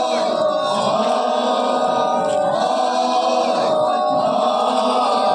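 A group of many voices singing together in chorus, sustained and steady.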